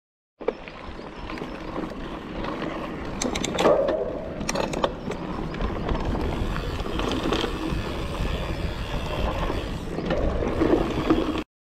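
Mountain bike ridden down a dirt forest trail, heard from a camera on the handlebars: tyres rolling over dirt and roots, the bike rattling, with wind rumbling on the microphone. Several sharp clacks come about three to five seconds in, and the sound cuts off suddenly near the end.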